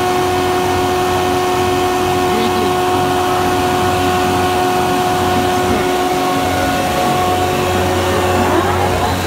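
S25-4 four-sided planer-moulder running idle with no timber fed, its cutter spindle turning: a steady machine hum with several fixed tones and an unchanging level.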